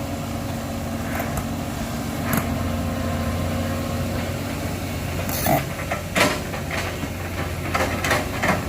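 Diesel excavator engine running steadily with a low drone, with several sharp knocks and cracks, most of them in the second half.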